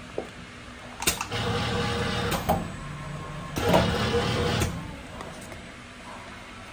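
Cup screen printing machine running a print cycle on a paper cup: a sharp clack about a second in, then two stretches of mechanical running and sliding, the first lasting about a second and a half and the second about a second, with a few clicks between them.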